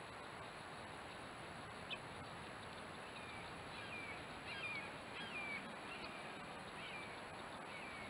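A bird calling: a run of short, falling calls, one or two a second, starting about three seconds in, over a steady hiss. A single sharp click about two seconds in.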